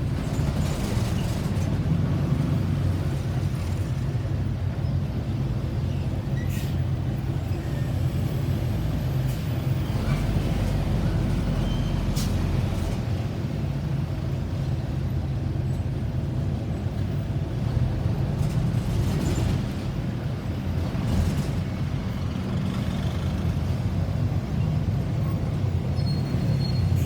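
Road traffic: vehicle engines running with a steady low rumble, broken by a few brief sharp noises. No siren is heard.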